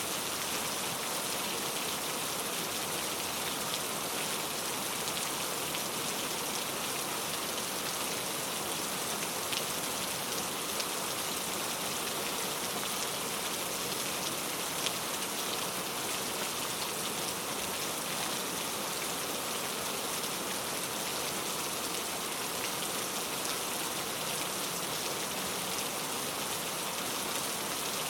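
Steady heavy rain falling on a surface, an even hiss with scattered droplet ticks and no thunder.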